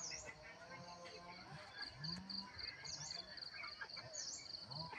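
Crickets chirping in a steady, evenly pulsed trill, with three short, higher sweeping calls above it.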